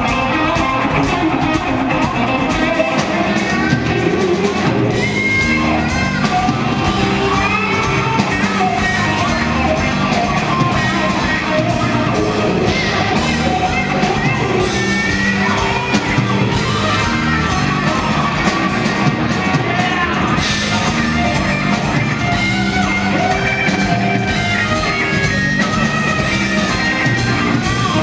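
A rock band playing live: electric guitar, bass and drums with a singer, loud and continuous, with the echo of a large hall.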